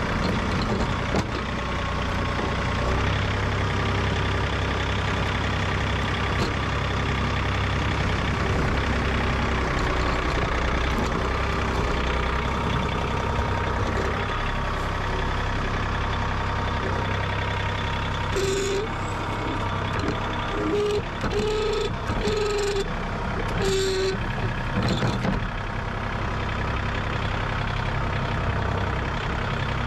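Compact tractor engine running steadily while it pushes snow with its front loader bucket. About two-thirds of the way in, a few short higher-pitched tones and brief noises come and go over the engine.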